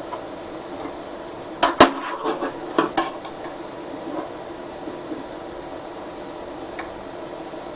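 A quick cluster of sharp metallic clicks and clinks about two seconds in: a spanner working the bed's eccentric nuts on a Geeetech A20 3D printer frame, to take the wobble out of the bed. A steady low hum runs underneath.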